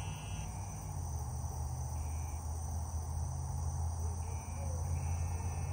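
Crickets and other insects trilling steadily in a summer chorus, with a few short, separate buzzes about two and four and a half seconds in, over a steady low hum.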